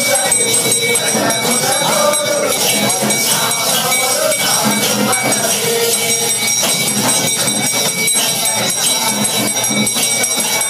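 A crowd of many voices chanting and calling together over continuously ringing bells.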